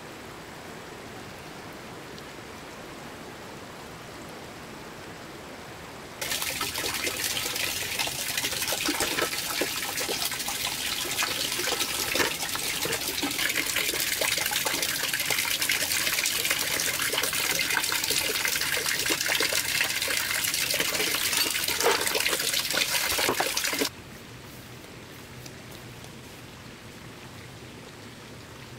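Falling water: a steady hiss of rain or water, then from about six seconds in a much louder, dense spattering of water that cuts off abruptly near the end, back to the softer hiss.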